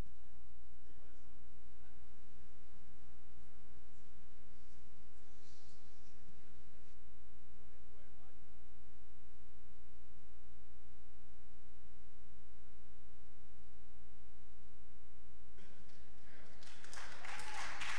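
Steady electrical mains hum with a buzzing ladder of overtones. A louder noisy rush comes in about a second and a half before the end.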